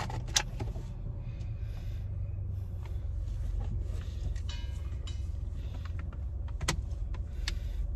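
Steady low rumble of a car heard from inside the cabin, with a few sharp clicks: one just after the start and two near the end.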